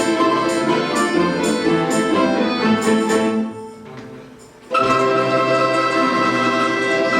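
Orchestra of Russian folk instruments playing a rhythmic dance passage with regular strokes, which dies away about three and a half seconds in. After a short pause the orchestra comes back in with long held chords.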